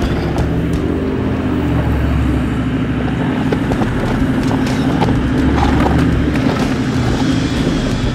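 Toyota Land Cruiser troopy's engine working steadily in first gear low as the truck crawls up a steep rocky climb, with the tyres crunching and scrabbling over loose rock and gravel.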